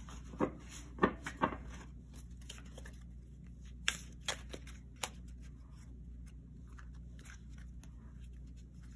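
Poker-sized tarot cards being handled between shuffles: a few scattered soft clicks and taps in the first five seconds over a low steady hum.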